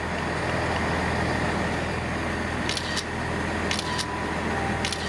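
Steady low hum of a South Western Railway Class 444 electric multiple unit standing at the platform, with a thin whine over it. Several short sharp clicks come in the second half, roughly in pairs.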